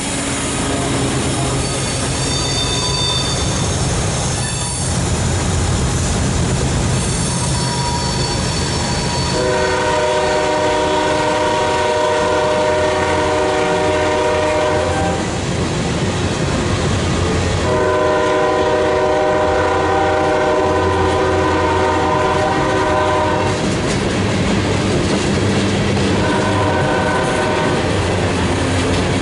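Freight train rolling past: a steady rumble and clatter of covered hoppers, tank cars and autoracks on the rails, with thin wheel squeals in the first few seconds. About ten seconds in, a diesel locomotive's chime horn sounds the grade-crossing signal: two long blasts, a short one, and a last long blast starting near the end.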